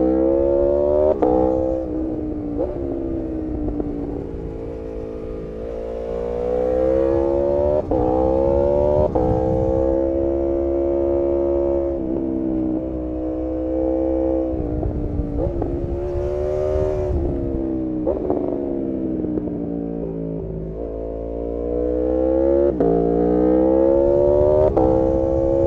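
Aprilia RSV4 Factory's V4 engine under way, its pitch climbing under throttle and dropping sharply at quick upshifts, with stretches of steady cruising and falling revs as the throttle is rolled off. It accelerates through gears about a second in, around eight to nine seconds in, and again near the end.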